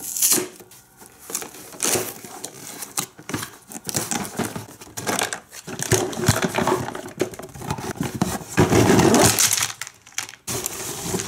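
A cardboard toy box being opened and its contents handled: a run of crinkling, tearing and rustling of cardboard and plastic packaging with scattered clicks, loudest near the end.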